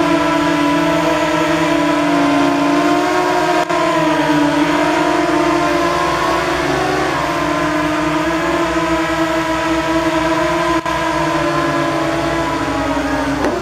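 The motors and propellers of a radio-controlled flying saucer run in a steady, loud hum-whine. The pitch wavers briefly about halfway through as the craft descends, and the sound dies away near the end once it has settled on the ground.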